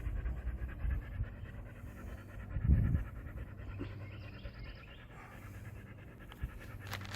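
Rapid panting close to the microphone over a steady low hum, with a single low thump about three seconds in.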